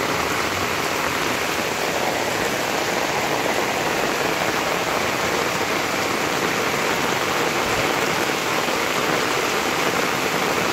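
Heavy tropical downpour falling steadily onto paving and a flooded lane, a dense, even hiss of rain with no let-up.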